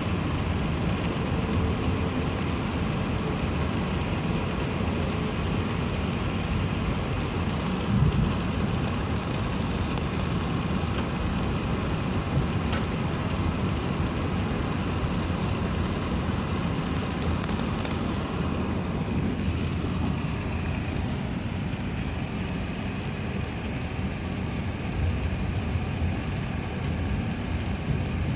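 Steady low rumble and hiss of an Airbus A380's passenger cabin with its engines running, with a single thump about eight seconds in.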